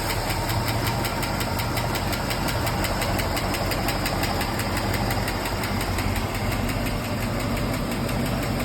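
Pushrod V-engine idling steadily just after starting, now on stock 1.5 ratio rocker arms in place of 1.6 ratio rockers. The engine runs evenly, without the driver's-side lifter tick it had before.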